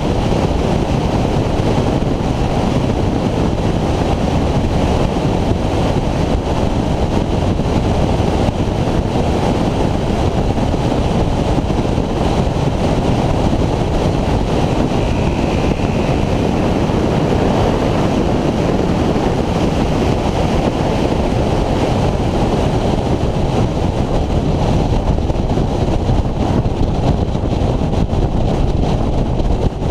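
Steady wind rush buffeting the microphone, over the road and engine noise of a Honda VFR800X Crossrunner motorcycle cruising at a constant speed.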